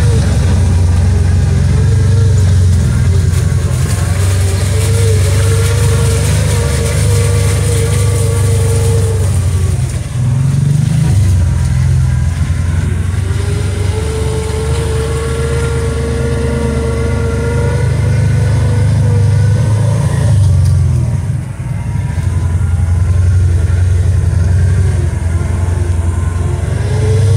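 Side-by-side UTV engine running under way, heard from inside the cab on a rough dirt trail, with a whine that rises and falls as the throttle changes. The engine eases off briefly twice, about ten seconds in and again about two-thirds through.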